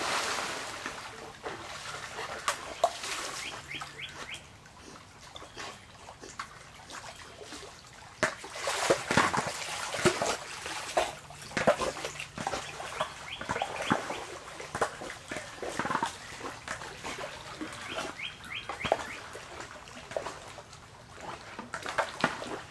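Pool water splashing as a Labrador retriever leaps into a swimming pool, a big splash at the start that dies away over a few seconds. More splashing follows as the dog swims, loudest in a run of splashes around eight to twelve seconds in.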